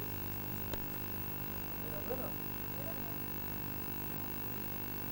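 Steady low electrical hum and hiss on the recording, typical of a faulty audio track, with a faint far-off voice about two seconds in and a single soft click under a second in.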